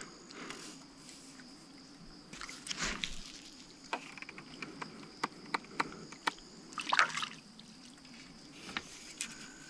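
Water dripping and trickling, with scattered sharp clicks and two louder splashy bursts, about two and a half seconds in and about seven seconds in.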